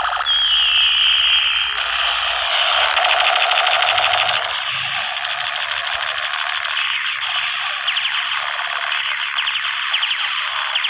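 Electronic sound effect from a battery-powered toy gun played through its small built-in speaker: a fast, rattling buzz of rapid-fire shots that opens with a short high whine falling slightly in pitch.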